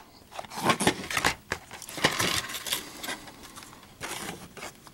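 Plastic DVD case being handled and opened: an irregular run of clicks, taps and scratchy rustling as the case and its paper insert are handled.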